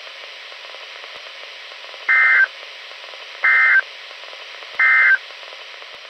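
Three short, identical bursts of EAS/SAME digital data tones, the end-of-message code, evenly spaced about a second and a half apart over steady radio hiss.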